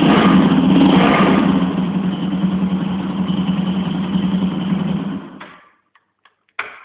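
Guowei GW150-5C 150 cc motorcycle engine running, louder for the first second and a half, then settling to a steadier, quieter run before it is switched off about five seconds in and dies away. A few short clicks follow, the last one louder.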